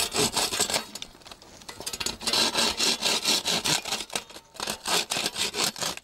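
Hacksaw cutting a bamboo pole on a beehive frame, in quick back-and-forth strokes. The strokes ease off between about one and two seconds in, then come fast and strong again.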